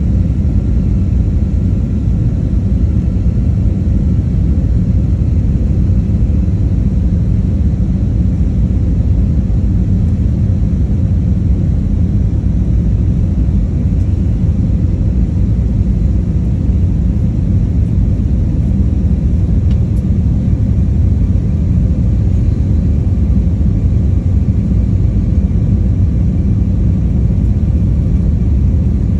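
Steady low rumble of an airliner's engines and rushing air heard from inside the cabin on approach to landing, with a faint steady hum above it.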